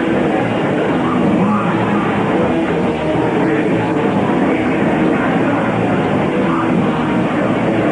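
Punk rock band playing live, loud and steady: electric guitar, bass and drums.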